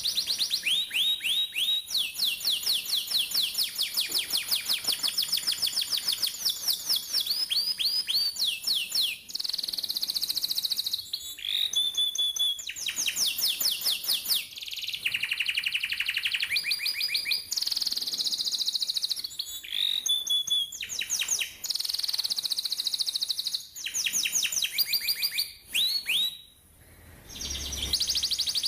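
Canary singing a long rolling song: fast runs of repeated high notes, each a quick downward sweep, alternating with buzzy trills and chirps. The song breaks off briefly near the end, then resumes.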